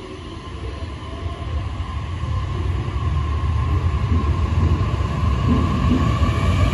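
E531-series electric train accelerating away from the platform. Its inverter-driven traction motors whine and rise in pitch over a low rumble of the running gear, growing steadily louder.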